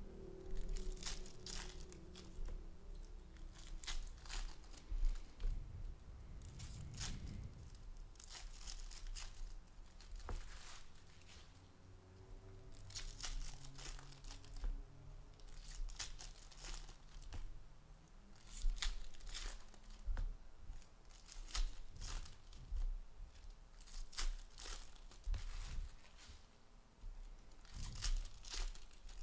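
Baseball card pack wrappers being torn open and crinkled by hand, in many short, irregular crackles.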